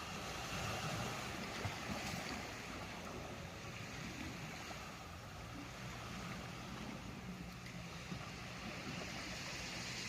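Ocean surf washing in, a steady rushing noise that swells slightly about a second in and again near the end.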